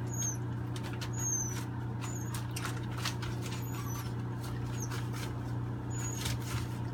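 Puppies moving about on newspaper, with paper rustling and scratching, and a few short high-pitched squeaks that fall in pitch. A steady low hum runs underneath.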